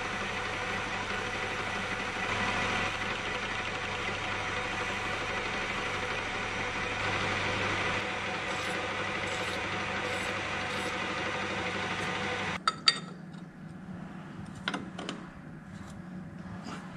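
Metal lathe running steadily, its drive giving a hum with several steady tones, while the spinning workpiece in the 3-jaw chuck is dressed with an abrasive strip. About twelve seconds in the machine sound cuts off suddenly, leaving a few light metal knocks as a turned sleeve is handled against the part.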